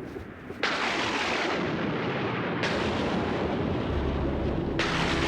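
Storm sound effect: thunder breaking suddenly about half a second in and rumbling on, with fresh cracks around the middle and near the end.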